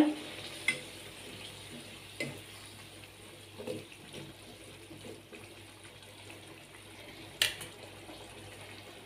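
Slotted spatula stirring a watery potato gravy in a nonstick pan: faint sloshing of liquid with a few light clicks of the spatula against the pan, the sharpest about seven seconds in.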